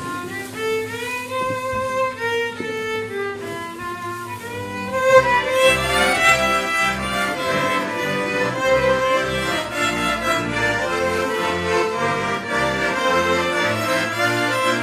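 Folk band playing an instrumental piece. A violin plays the melody alone over a held low note for the first few seconds; about five seconds in, the rest of the band comes in with a steady low beat.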